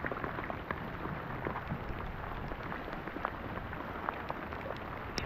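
Rain falling steadily, with many separate drops ticking close by and one sharper tick near the end.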